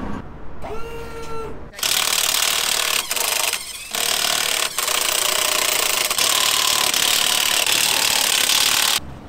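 Cordless impact wrench hammering at a trailer wheel's lug nuts to break them loose. It runs in one long stretch of about seven seconds with a couple of brief breaks, and comes after a short whir of the wrench spinning up and down.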